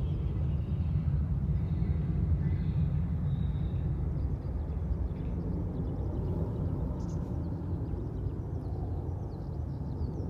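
Wind buffeting a handheld phone's microphone: a steady, uneven low rumble that eases slightly near the end, with faint high chirps in the second half.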